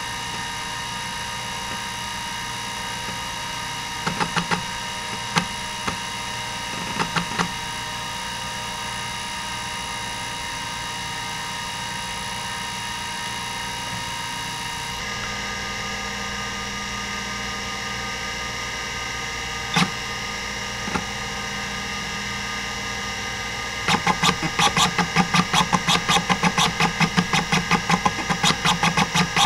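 Hitachi DK505-2 26 MB stepper-motor hard drive spinning with a steady whine. It gives a few short clusters of head-seek clicks and buzzes in the first half and a single seek later. From about 24 s it seeks rapidly, about four clicks a second, as it runs a random-sector-access benchmark.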